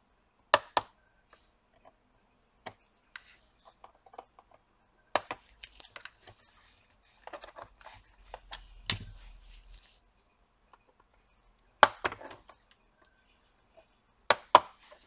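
Plastic keyboard retaining clips of a Dell Vostro 15 3000-series laptop snapping loose as a pry tool works along the keyboard's edge: scattered sharp snaps and clicks with light scraping between them, the loudest snap about twelve seconds in.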